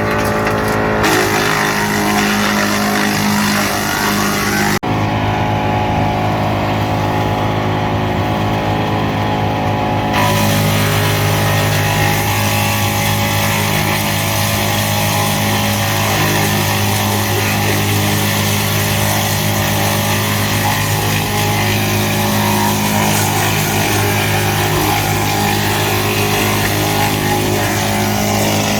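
Tractor engine driving a GL&D M175DS tractor-mounted woodchipper, running at a steady speed, with an abrupt change in the sound about five seconds in.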